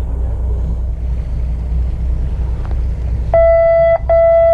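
Fishing boat's buzzer sounding two long beeps, a steady mid-pitched tone starting about three seconds in with a brief break between them, over a steady low rumble. It is the captain's signal to stop fishing and reel in, given here as two long beeps in place of the usual three.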